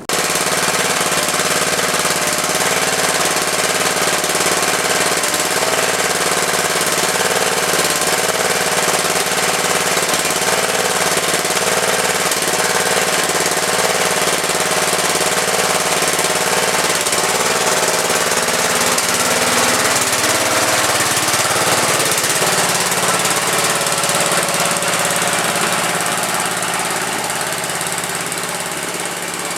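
Snapper riding lawnmower engine running steadily while the mower pushes snow with a front-mounted plow. Its pitch wavers around twenty seconds in, and it gets slightly quieter near the end.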